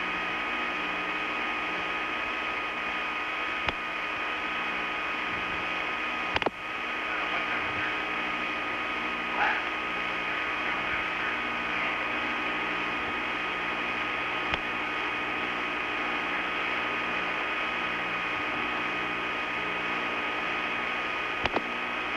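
Steady hiss and hum with faint steady tones, broken by a handful of sharp clicks, the loudest about six seconds in.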